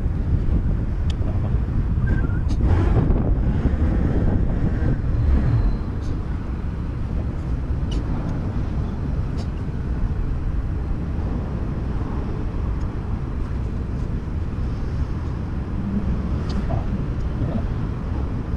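Yamaha Cygnus 125 scooter riding in traffic: engine and road rumble with wind on the microphone. Louder for the first few seconds, then lower and steadier as the scooter slows behind a car.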